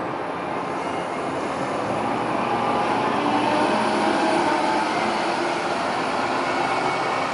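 Articulated diesel-electric hybrid city bus pulling away and passing close by, its drive running with a steady whine over the rumble of traffic, growing louder over the first few seconds.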